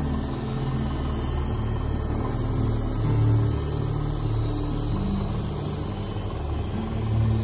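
Background music with a low bass line that shifts from note to note, over a steady high-pitched drone of insects.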